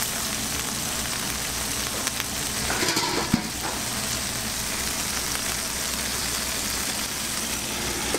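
Burger patties and bacon sizzling steadily on a flat-top griddle. About three seconds in there is a brief louder clatter ending in a sharp knock.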